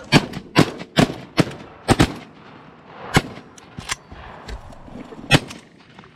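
A volley of shotgun fire from several goose hunters: about six shots in quick, uneven succession in the first two seconds, then a few scattered shots, one loud one about five seconds in.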